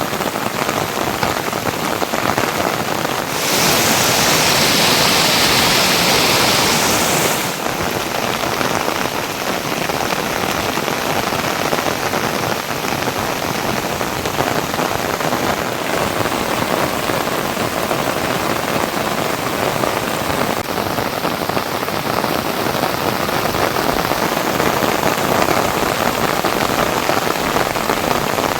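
Heavy rain pouring steadily onto surfaces. A few seconds in, the hiss swells brighter and louder for about four seconds, then settles back.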